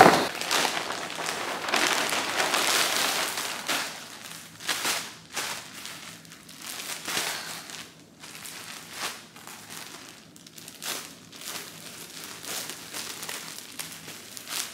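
Packaging crinkling and rustling as a parcel is handled and opened by hand. It is fuller in the first few seconds, then comes in irregular short bursts.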